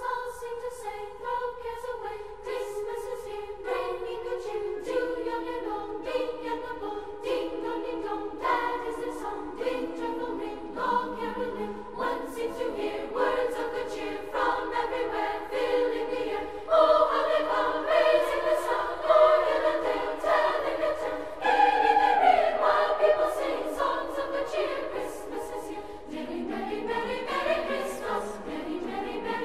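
Background music of choral singing, with held notes that change every second or so.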